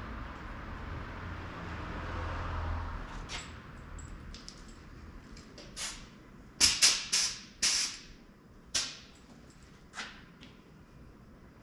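Steady noise of a passing vehicle fading away, then a run of about seven sharp clacks and knocks over four seconds.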